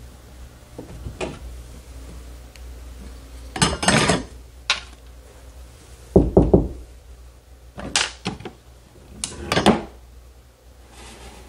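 Knuckles rapping a few times on a drywall wall, heavy dull knocks about six seconds in. Around them, clatter and sharp clicks of tools and a metal bracket being handled.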